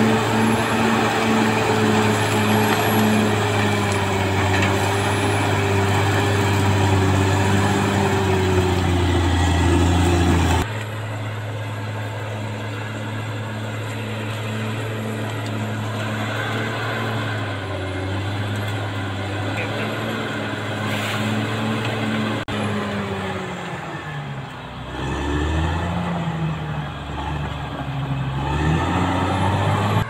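Caterpillar D6R XL bulldozer's diesel engine running steadily under load as it pushes earth. About ten seconds in the sound drops abruptly quieter, and near the end the engine note sags and then rises again.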